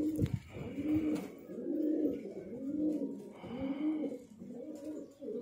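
Domestic racing pigeons cooing: a steady run of low coos that rise and fall in pitch, about two a second.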